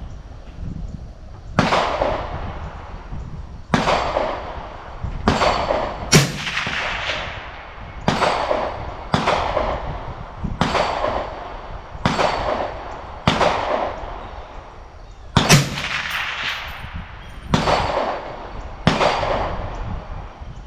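Ruger SFAR .308 semi-automatic rifle firing about a dozen shots, one every one to two seconds, each a sharp crack with a ringing echo trailing off.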